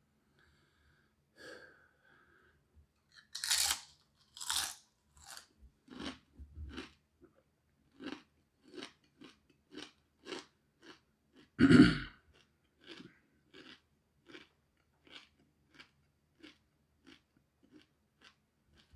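A thick corn tortilla chip crunching as it is bitten, twice and loudly, then chewed steadily with the mouth closed at about two chews a second, the chews growing fainter as the chip breaks down. One much louder sound comes about twelve seconds in.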